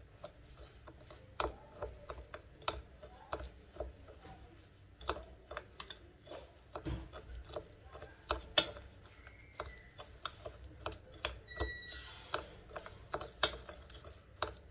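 Metal spoon stirring powdered sugar and milk into a thick white glaze in a ceramic bowl, with irregular clicks and taps of the spoon against the bowl. A brief high ring sounds once about three quarters of the way through.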